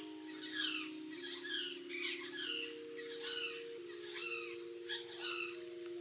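A flock of parrots calling: six short calls, each falling in pitch, about one a second. Under them, background music of held soft notes that shift in pitch every second or so.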